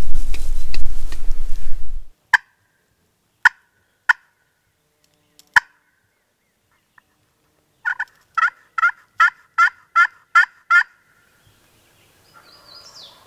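A turkey friction call (pot call worked with a striker) imitating a hen: four single clucks spaced out over a few seconds, then a quick run of about eight yelps. It opens with two seconds of loud rustling.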